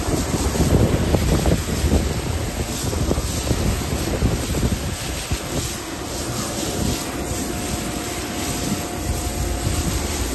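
Steady rushing noise of car wash equipment with wind buffeting the microphone, and a faint steady whine coming in about six seconds in.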